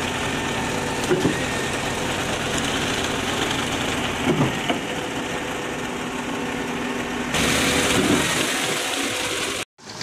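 Diesel engines of a concrete mixer truck and a trailer-mounted concrete pump running steadily as concrete is fed into the pump's hopper, with three louder thumps a few seconds apart. A brighter hiss joins about seven seconds in, and the sound drops out briefly just before the end.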